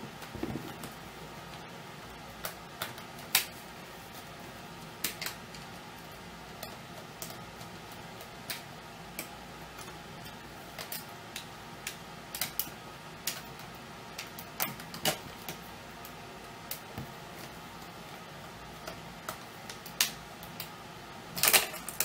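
Scattered small clicks and taps at irregular intervals, a cluster of them near the end: a tiny screwdriver working screws out of a laptop's plastic bottom case.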